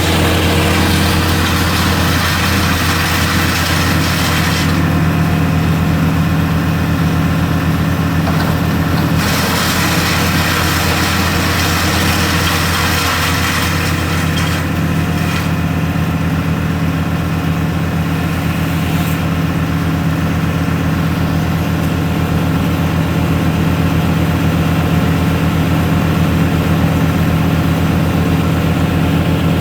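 An engine idling steadily at one constant speed, with no revving.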